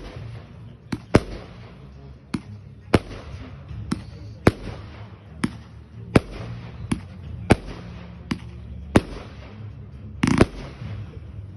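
Fireworks firing in a series of sharp, separate bangs, irregularly spaced at roughly one every half second to a second. A short, denser cluster of cracks comes near the end.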